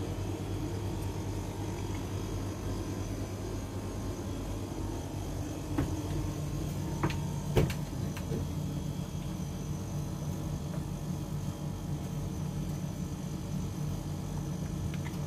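Steady low machinery hum, with a few short knocks and clicks in the middle, the sharpest about seven and a half seconds in.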